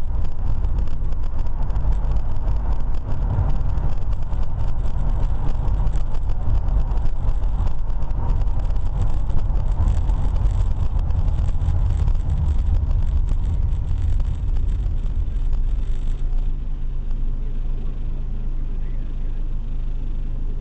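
Road and engine noise of a car heard from inside while driving, a steady low rumble with tyre hiss. About 16 seconds in it eases off as the car slows for an intersection, leaving a steadier low engine hum.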